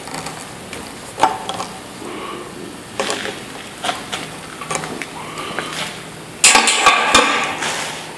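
Scattered metallic clanks and knocks from the steel parts of a manual tube bender being handled, with a denser clatter of sharp strikes about six and a half seconds in.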